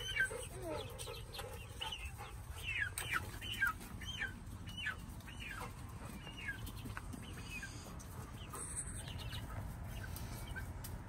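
Young chickens, about two months old, peeping repeatedly: short high calls that fall in pitch, about two a second. They die away about seven seconds in.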